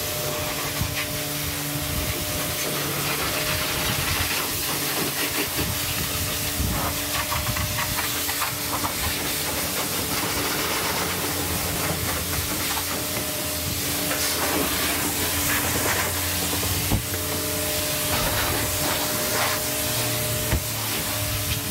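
Pressure washer spraying water onto a car's paintwork: a steady, continuous hiss with a steady machine hum underneath and small scattered knocks.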